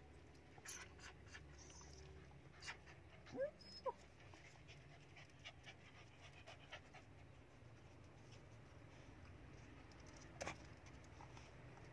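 Faint small-dog sounds: panting, with two short whimpers about three and a half seconds in, and scattered light clicks including a sharper one near the end.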